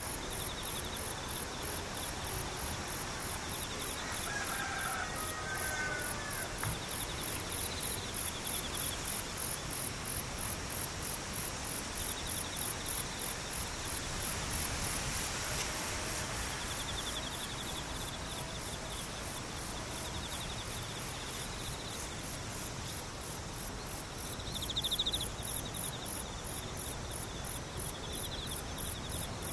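Insects chirping: a high, shrill pulse repeating evenly about twice a second, over a fainter trill lower in pitch that swells and fades, with a few brief chirps of another caller about four to six seconds in.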